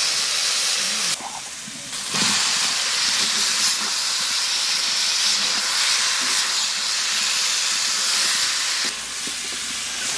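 Spice masala and vegetables frying in hot mustard oil in an iron kadai, a steady loud sizzle with a spatula scraping and stirring through it. The sizzle drops away briefly about a second in and again near the end.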